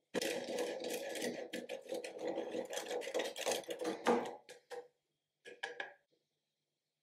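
Hard Parmesan-type cheese being grated on a stainless steel box grater: rapid rasping strokes for about four and a half seconds, then a few single scrapes and one short final burst.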